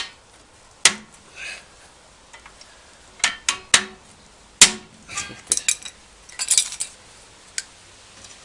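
Irregular sharp metallic clinks and clicks of hand tools against the steel parts of a classic Lada's rear drum brake as the lower return spring of the brake shoes is worked off. About a dozen separate strikes, the loudest about halfway through.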